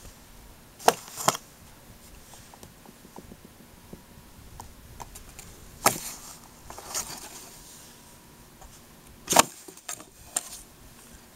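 Cardboard box knocked and scraped as a cat moves and paws about inside it: a handful of sharp knocks, two close together about a second in and more near the middle and end, with faint scraping between.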